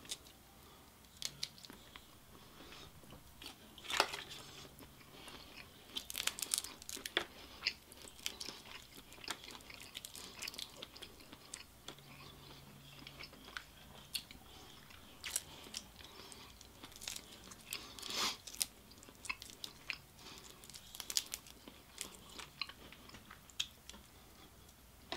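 Close-up eating sounds of a Cajun seafood boil: shrimp and crawfish shells being cracked and peeled by hand in the sauce, with wet smacks and chewing. Quiet, as scattered sharp clicks and crackles.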